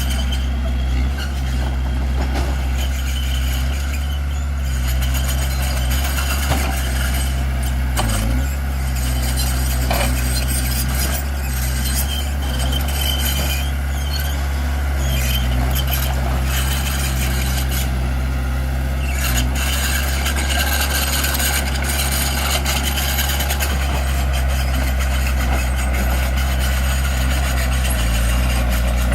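Heavy diesel engine of earthmoving equipment running steadily at an even low pitch, with a few faint clicks.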